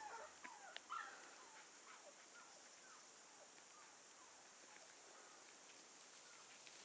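Faint, short high-pitched animal calls, many in the first two seconds or so, then fewer and fainter.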